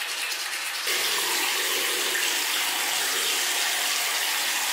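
Water running steadily, a step louder about a second in.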